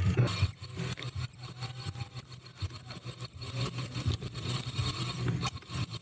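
Cyclocross bike rattling and jolting over rough ground at race pace, with a run of short, very high chirps through most of it.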